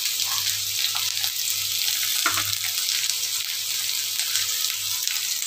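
Steamed carrot and green-bean pieces sizzling in a little olive oil in a steel kadai: a steady hiss with a few faint crackles.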